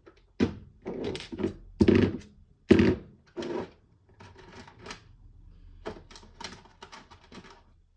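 Hands rummaging among small hard parts and screws, an irregular run of clacks and clatters, loudest in the first three seconds and lighter after.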